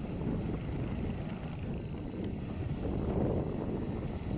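Bell 407 helicopter hovering low, its turbine and four-blade main rotor running steadily with a rapid low rotor beat.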